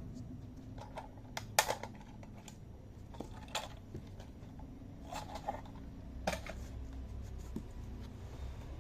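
Irregular sharp plastic clicks and knocks from a toy truck being handled, the loudest a double knock about one and a half seconds in, with more near the middle and end, over a low steady hum.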